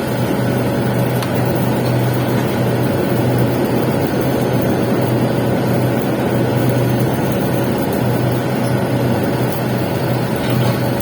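Welding arc burning steadily while a capping pass is laid on pipe: a continuous hiss over a low steady hum, with no break.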